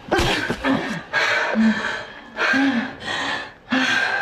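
Women's strained cries and gasps during a physical fight on the floor, coming in four harsh, breathy bursts about a second apart.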